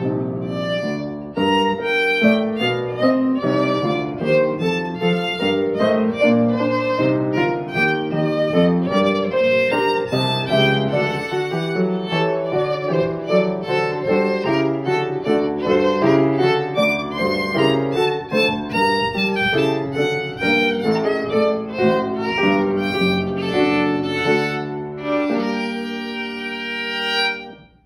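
Solo violin, bowed and unaccompanied, playing a quick run of many short notes, ending on a longer held note that stops abruptly near the end.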